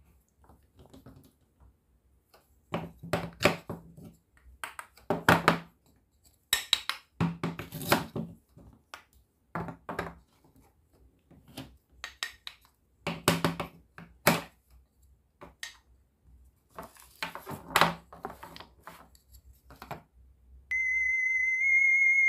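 Plastic and wooden toy food pieces knocking and clattering on a small wooden cutting board as a wooden toy knife cuts them apart, in short bursts every second or two. Near the end a loud, steady electronic tone sounds and then drops to a lower pitch.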